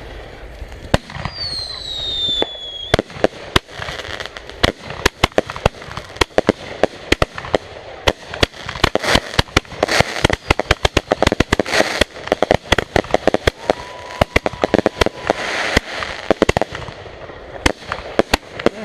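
Backyard consumer fireworks going off. Early on, a whistling firework gives a falling whistle that ends in a bang. Then a long run of rapid crackling reports follows, several every second, like a firecracker string or a multi-shot cake.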